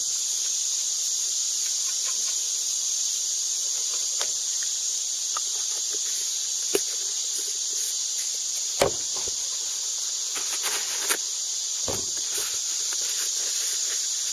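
Steady high-pitched hiss of an insect chorus, with a few scattered knocks, the loudest about nine seconds in.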